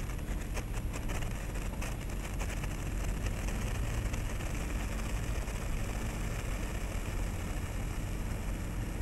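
A steady low rumble, with the faint crackle of a senko hanabi sparkler throwing sparks during the first couple of seconds.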